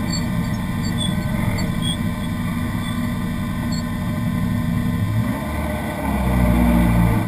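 Citroën Saxo VTS rally car's 1.6-litre four-cylinder engine idling, heard from inside the stripped, caged cabin. About six seconds in, a deeper, louder rumble sets in for the last second.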